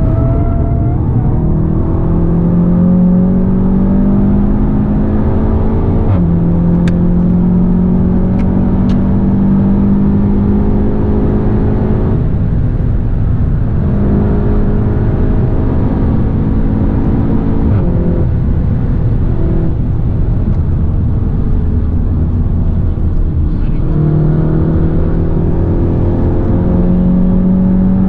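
Seat Leon Cupra 290's turbocharged 2.0-litre four-cylinder heard from inside the cabin under hard driving. The engine note climbs slowly under load, with sudden pitch changes at gear shifts about six seconds in and again near the end, and short lifts off the throttle around twelve and eighteen seconds in. Steady tyre and road noise runs underneath.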